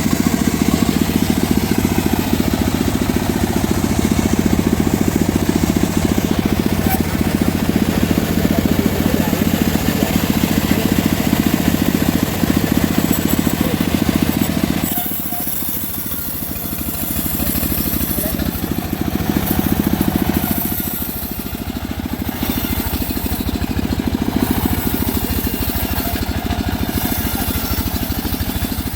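Engine-driven homemade bandsaw mill running while it saws mahogany, with a steady pulsing engine note. About halfway through the sound drops, then rises and falls a few times as the load on the saw changes.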